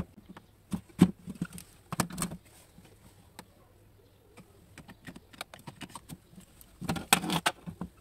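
Scattered plastic clicks and knocks as the parts of a cordless stick vacuum are handled and fitted together: the tube into the floor head, then the handle unit onto the tube. The busiest cluster of knocks comes about seven seconds in.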